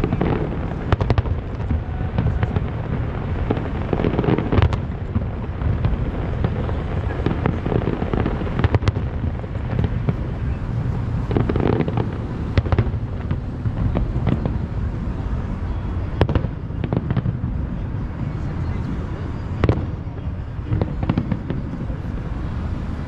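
Aerial fireworks shells bursting in the distance: irregular bangs and crackles, some in quick clusters, over a steady low background noise.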